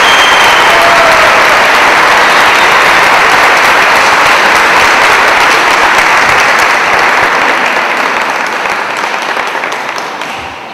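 Audience applauding steadily, then dying away over the last few seconds.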